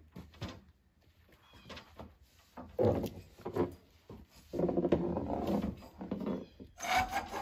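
A man groaning and grunting with effort while climbing down a metal scaffold tower, in drawn-out pitched sounds, with a short scrape or clatter near the end.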